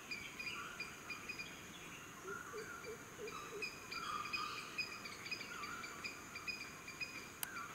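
Forest ambience of several birds chirping and warbling in overlapping calls, over a steady high insect drone. One sharp click near the end.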